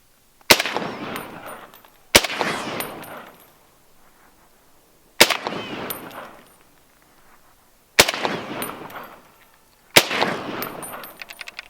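Five rifle shots from a SCAR 17 firing 7.62x51 (.308) rounds, spaced unevenly over about ten seconds. Each shot is followed by a long echo. None of the rounds hits the steel anvil target.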